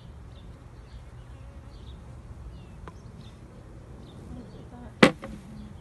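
Honeybees buzzing around an open nucleus box, with faint bird chirps. A sharp, loud knock comes about five seconds in as the hive frames are handled.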